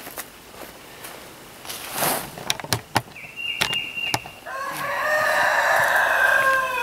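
A rooster crowing once, a long call of about two seconds near the end, over scattered knocks and clicks.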